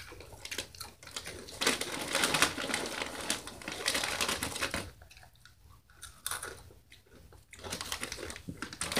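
Crunchy spicy chips being chewed loudly with open mouths, crunching off and on with a short lull a little past the middle.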